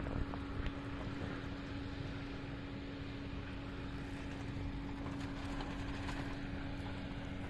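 A motor running steadily: an even hum that holds one pitch throughout, over a constant background hiss, with a couple of soft knocks about half a second in.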